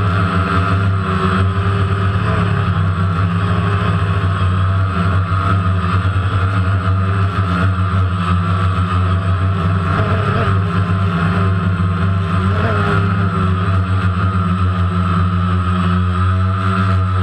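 DJI Phantom quadcopter's motors and propellers buzzing steadily and loudly in flight, heard close up from the GoPro camera mounted on the drone, with a low hum and a higher whine held throughout.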